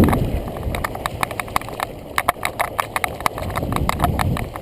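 Rapid, irregular clicks and taps from a camera rig strapped to a running boxer dog, jostling with each stride, over a low rumble of wind on the microphone.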